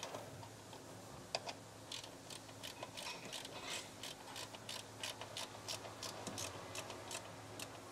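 Ratchet wrench clicking in quick, irregular runs of several clicks a second as the nuts on a coilover's upper strut mount are run down.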